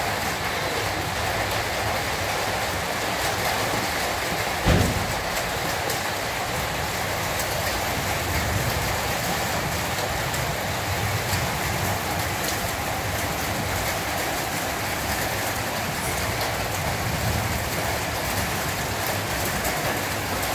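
A steady rushing hiss at an even level, with one thump a little under five seconds in.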